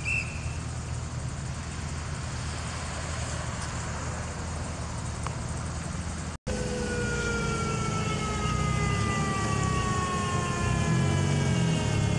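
Steady low engine hum, then, after a break about six seconds in, a siren tone sliding slowly down in pitch over the sound of an approaching police motorcycle engine that grows louder toward the end.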